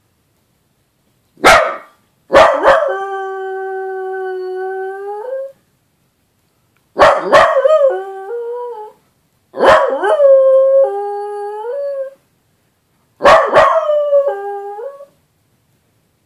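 Dachshund barks once, then howls four times with pauses between. Each howl opens with a sharp yelp and settles into a held note; the first is long and steady, and the later ones step up and down in pitch.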